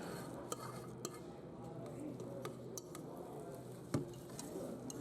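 Eating a crab boil: scattered clicks and clinks of crab shell and utensils, with a sharper knock about four seconds in.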